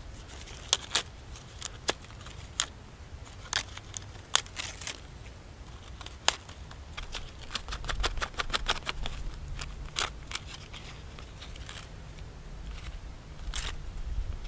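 Dry birch bark and shredded bark tinder crackling and rustling as it is handled, in sharp irregular clicks with a quick run of them about halfway through.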